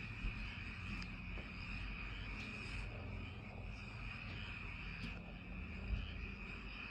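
Night chorus of frogs calling as a dense, steady trill, over a low rumble, with two faint knocks, one just after the start and one near the end.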